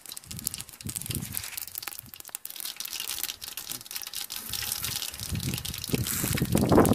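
Water gushing and splashing, mixed with crinkling, rustling handling noises, growing louder near the end.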